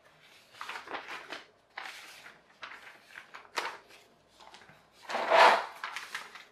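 Paper sheets and a clear plastic parts bag rustling and crinkling as they are handled, in a string of irregular rustles. The loudest crinkle comes about five seconds in.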